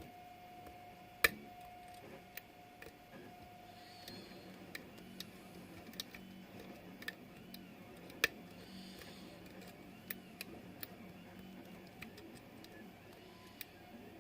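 Lock pick and tension wrench working inside a pin-tumbler lock: irregular small metallic clicks and taps as the pins are lifted, with one sharper click about a second in.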